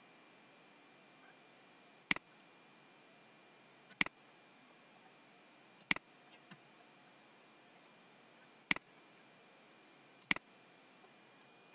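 Computer mouse button clicking: five single sharp clicks about two seconds apart, over a faint steady hiss.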